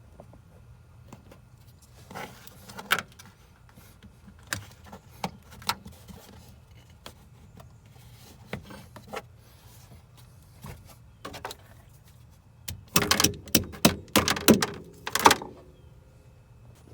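Scattered clicks, taps and knocks of parts and tools being handled in a car's trunk, with a burst of louder rattling knocks about thirteen seconds in.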